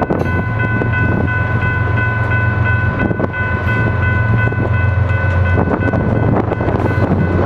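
Loaded tank cars of a freight train rolling past, wheels clicking over the rail joints, with a steady high-pitched ring from the wheels and a constant low drone from the GE Evolution Series diesel locomotive pushing as rear distributed power.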